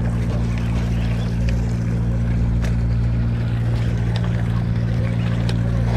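A boat's engine running steadily, a low even drone, with a few faint light knocks over it.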